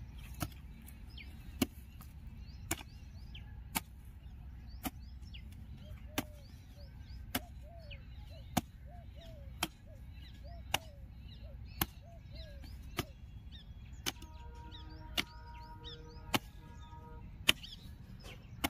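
Mattock striking hard, clumpy soil in steady, repeated blows, about one sharp thud a second.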